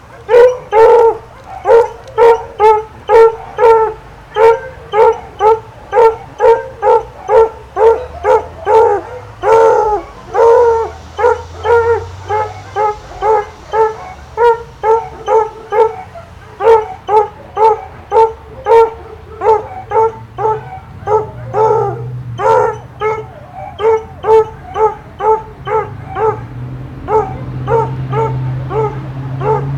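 A dog barking over and over in a steady rhythm, about two barks a second, without letting up.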